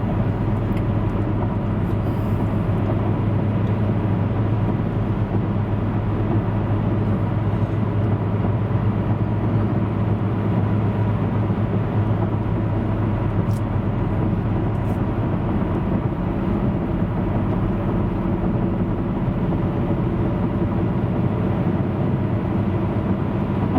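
Steady drone of a car running, a low engine hum and road noise that holds even throughout.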